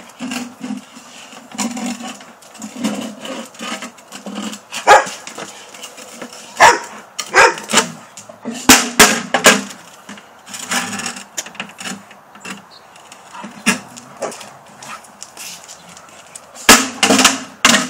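Rottweilers barking while they play with a plastic bucket, which clacks and knocks sharply on the concrete as they tug and shake it, with clusters of knocks in the middle and near the end.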